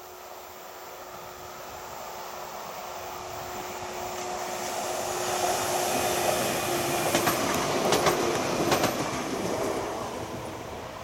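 Electric multiple unit passenger train passing. Its running noise swells as it approaches and then falls away, with a few sharp wheel clacks on the rails at the loudest point.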